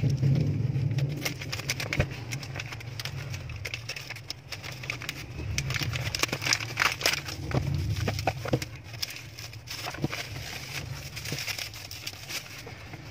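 Crinkling and rustling of a foil bubble mailer being pulled open by hand and a boxed tool set slid out of it, irregular crackles over a low steady hum.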